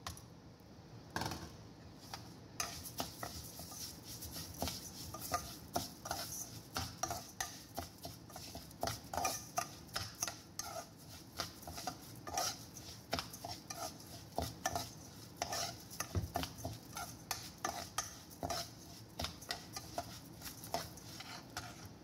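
Metal spoon stirring dry orzo in a non-stick pot: irregular scrapes and clinks of the spoon against the pot, with the grains rustling, starting a couple of seconds in.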